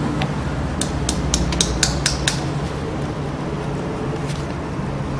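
A quick run of about seven sharp clicks, between about one and two and a half seconds in, as an awl works through the white leather cover of a sliotar (hurling ball) being hand-stitched, over a steady low hum.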